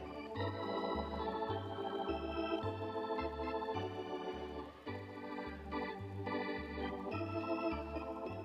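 Organ music with a bouncing bass line that alternates between two notes about twice a second, under sustained chords and melody.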